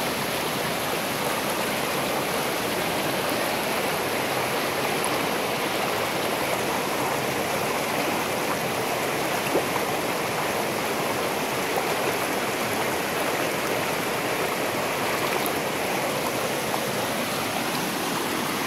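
A shallow mountain stream rushing over smooth bedrock in a small cascade, a steady even rush of water.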